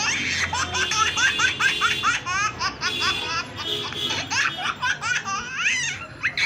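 A baby laughing in a long run of quick, high-pitched giggles, each one rising in pitch, several a second.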